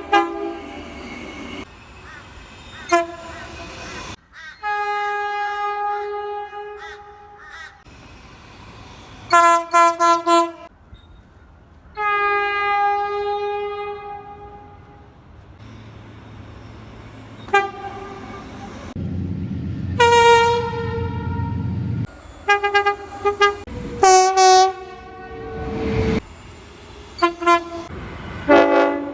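Queensland Rail train horns sounding in a run of separate clips: several long blasts of two to three seconds each, and groups of short toots in quick succession.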